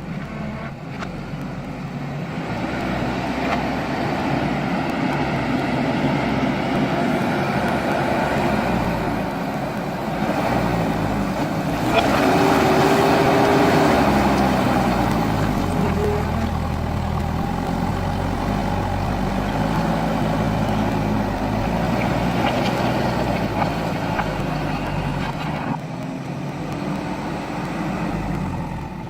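JCB backhoe loader's diesel engine working, its pitch rising and falling as it revs up and down under load, with a sharp knock about twelve seconds in.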